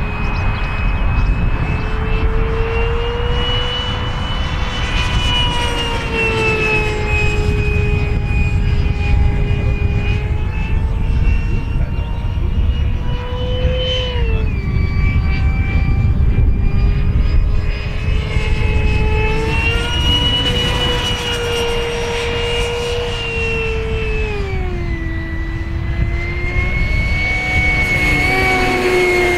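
Electric ducted fan of a Jet Arrows Vampire model jet (Wemotec Midifan driven by a Mega 22/35 motor) whining in flight. The steady whine rises and falls in pitch several times, dropping sharply about halfway through and again near the end.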